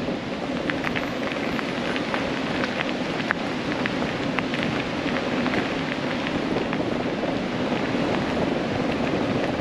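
Bicycle towing a Croozer trailer rolling along a path: a steady rushing noise of tyres and wind, with many small scattered ticks and clicks.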